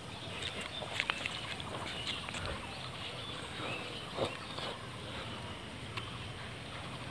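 Stray dogs play-fighting, giving a few brief sounds, sharpest about a second in and again just after four seconds, over steady background noise.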